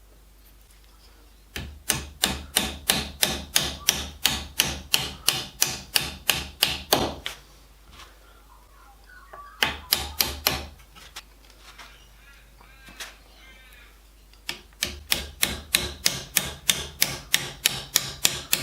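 Rapid, evenly spaced hammer taps, about three or four a second in three runs, as pencils are tapped into the wooden box.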